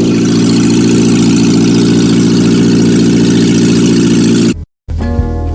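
1990 Geo Tracker's engine running steadily at an even pitch, cut off abruptly about four and a half seconds in, followed by acoustic guitar music near the end.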